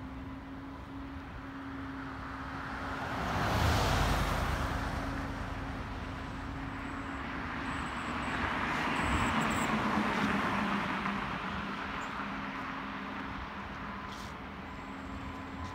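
Two road vehicles passing by one after another. The traffic noise swells and fades about four seconds in, then again around nine to ten seconds in, over a steady low hum.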